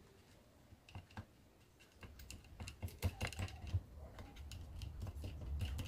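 Small screwdriver tip clicking and scraping against the plastic and metal parts inside an opened electric hair clipper, with handling knocks. A couple of clicks come about a second in, then a quicker, irregular run of clicks from about two seconds on.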